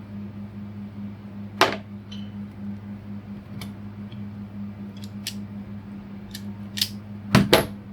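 Sharp clicks and snips of hand tools stripping the outer sheath off a mains cable: one sharp snip about a second and a half in, lighter clicks after it, and the loudest pair of clicks near the end. A steady fan hum runs underneath.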